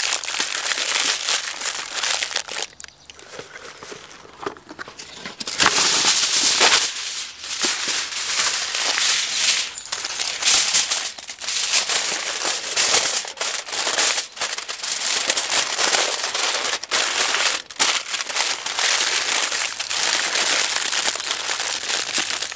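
Aluminium foil being folded, crumpled and pressed by hand, crinkling as a sheet is wrapped around a foil food packet for a double layer. It eases off briefly a few seconds in, then picks up again.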